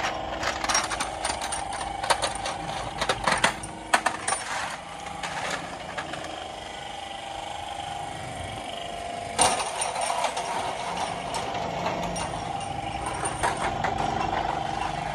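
Metal hand tools clinking and rattling against a Honda Civic's aluminium cylinder head during reassembly: a quick run of sharp clicks over the first few seconds and a single louder knock about nine seconds in, over a steady hum.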